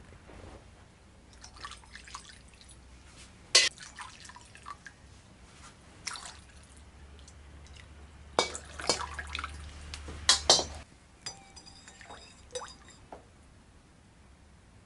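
Caramelized fish sauce dripping and being poured into a ceramic bowl, with splashes and sharp clicks, loudest from about eight to eleven seconds in; before that, scattered single pops and clicks.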